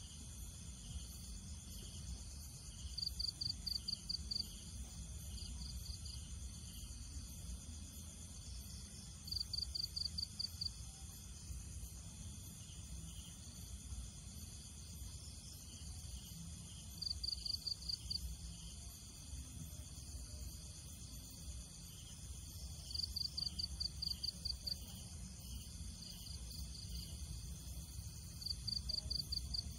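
Outdoor ambience: a steady high insect drone, broken every five or six seconds by a short, high-pitched pulsing chirp of about half a dozen rapid pulses, over a low rumble.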